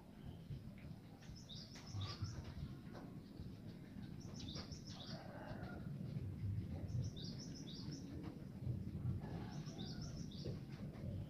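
A songbird repeats a short phrase of a few quick high notes four times, about every two and a half seconds, over a steady low rumble.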